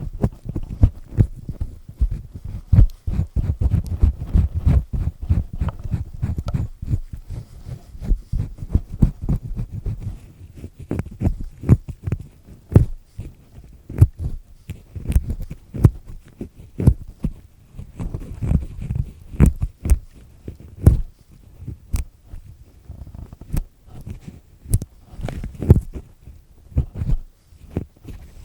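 Black triple-disc ear pick scraping and grinding inside an ear, close-miked: dense irregular scratching clicks over low rubbing thumps, busier in the first third and more spaced-out strokes after.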